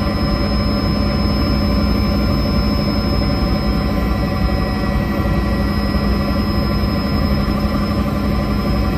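Helicopter engine and rotor noise heard from inside the cabin: a steady, loud drone with a constant high whine over it.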